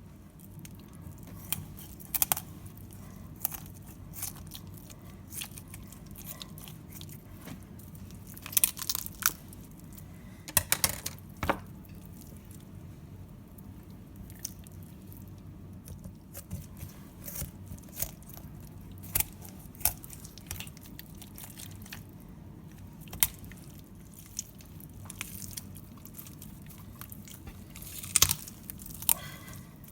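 A knife cutting up a raw whole chicken, giving irregular sharp crunches and knocks as skin, joints and bone are cut, with a few quick clusters of them over a steady low hum.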